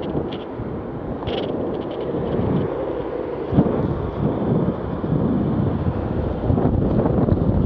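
Wind buffeting the microphone while riding a longboard down an asphalt road, over the steady rumble of the board's wheels, with a single thump about three and a half seconds in.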